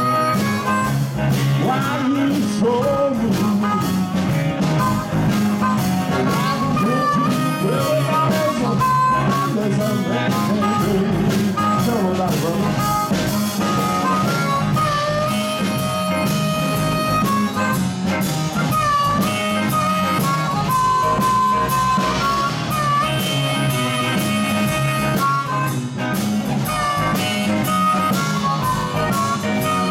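Live blues band playing, led by an amplified harmonica solo of long held notes that bend, over electric guitars and a drum kit keeping a steady beat.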